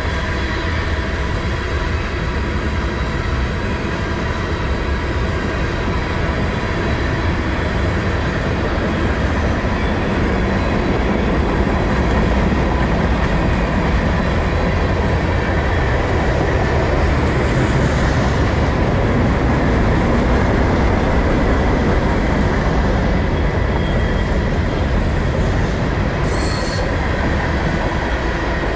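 Freight train cars (tank cars and covered hoppers) rolling steadily past, with a continuous rumble of steel wheels on rail and steady high wheel-squeal tones over it. A brief sharper squeal comes near the end.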